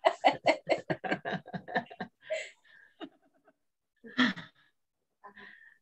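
A person laughing over a video call in a quick run of evenly spaced pulses that slows and fades over about two seconds, followed by a few short, quieter laughs.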